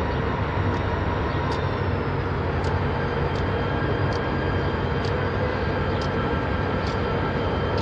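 Diesel-electric freight locomotive running slowly with a steady low engine drone, its bell ringing about once a second.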